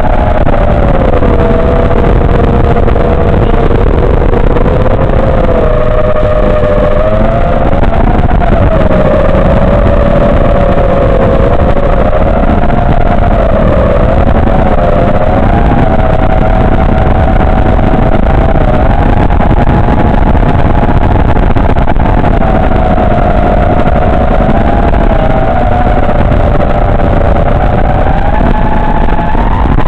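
FPV quadcopter's electric motors and propellers whining, the pitch wavering up and down with the throttle, over a loud rushing noise of wind and prop wash.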